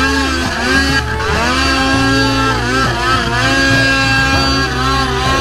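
Snowmobile engine running hard at high revs while the sled skims across open water, its pitch rising and falling with the throttle.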